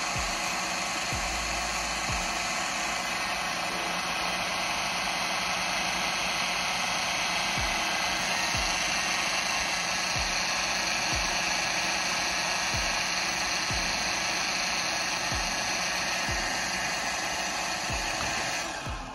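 Visuo folding quadcopter drone's small electric motors spinning on a table with the propellers removed: a steady high whine that cuts off suddenly near the end.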